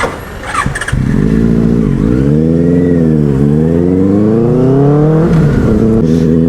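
Benelli 600i inline-four motorcycle engine through a loud aftermarket exhaust, pulling away hard: it comes in loudly about a second in, climbs in pitch with two brief dips as it shifts up, then drops to a steady note near the end.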